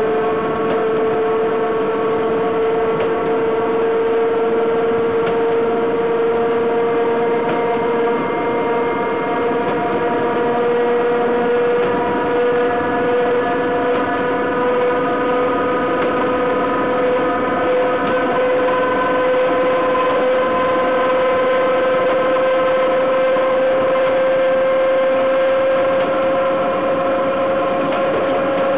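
BDZ class 43 electric locomotive's wheels and running gear rolling along the track, heard from right beside the bogie. Under a steady rumble of wheels on rail there is a whine that rises slowly in pitch.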